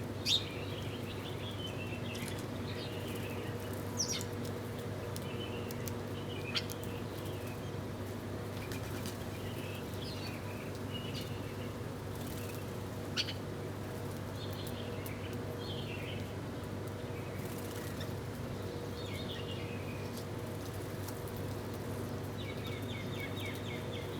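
Small birds chirping with short, high calls scattered throughout, with a few sharper, louder notes standing out near the start, at about four seconds, six seconds and thirteen seconds. A steady low hum runs underneath.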